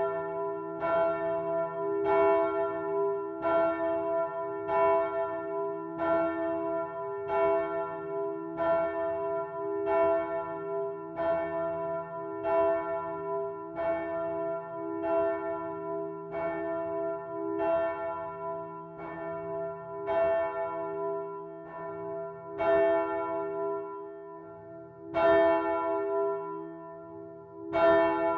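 A swinging bronze church bell, cast by Michiels of Tournai in 1957, ringing as its clapper strikes about once a second, each strike sustaining a ringing tone. In the last few seconds the strikes come further apart, about every two and a half seconds.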